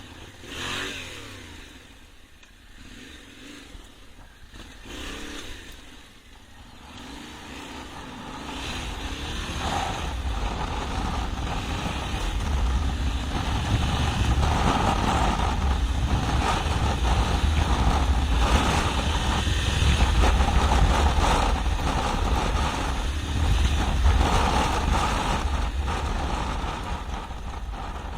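Yamaha Ténéré 700 parallel-twin engine on an off-road ride, at low revs with a couple of short revs early on. From about eight seconds in it grows much louder as the bike picks up speed, with a heavy low rumble.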